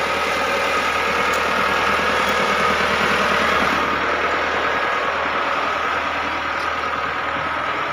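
Massey Ferguson 375 tractor's three-cylinder diesel engine running steadily at low revs.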